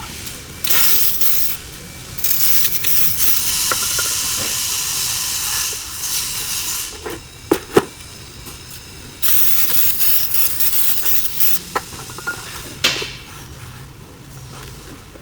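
Spray hissing in three bursts, the middle one several seconds long, with a few sharp clicks between them.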